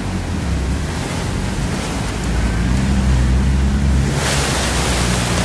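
An off-road 4x4's engine running, heard from inside the cab, under the rush of water splashing against the vehicle as it wades. The splashing grows much louder about four seconds in.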